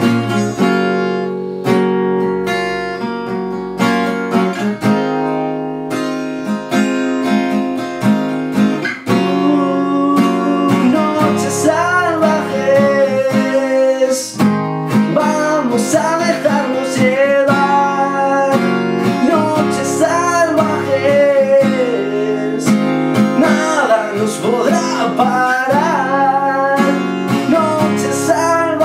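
Acoustic guitar strummed in a steady rhythm. From about ten seconds in, a man's voice sings over it in long, wavering notes.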